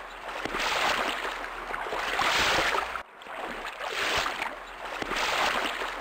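Water sound effect of waves washing, a hiss that swells and fades about every second and a half, breaking off abruptly about three seconds in and starting over as a looped clip.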